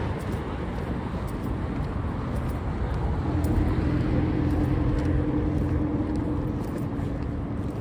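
City street traffic noise, with a steady engine hum coming in about three seconds in.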